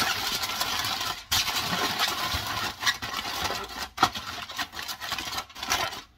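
Aluminum foil crinkling and crackling as it is pressed down and crimped around the rim of a disposable aluminum pan. The crinkling is dense at first, then comes in separate crackles and clicks.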